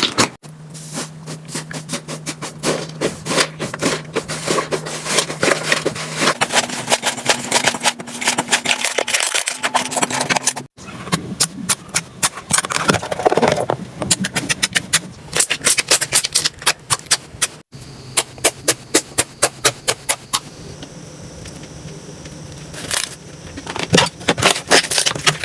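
Slime being squeezed and poked, making quick runs of sharp clicking pops, with abrupt cuts between short clips. A faint steady hum lies underneath.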